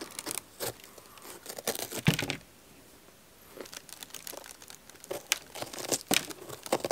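A small knife paring the skin off the thick stem of a large black bolete mushroom, in a run of short, crackling scrapes with a pause of about a second near the middle.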